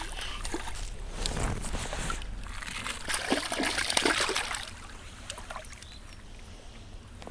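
A hooked pike thrashing and splashing at the water's surface as it is drawn in to the bank. The splashing comes in uneven bursts and dies away about two-thirds of the way through.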